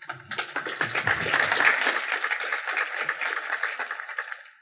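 Audience applauding, starting suddenly, strongest in the first two seconds and dying away near the end.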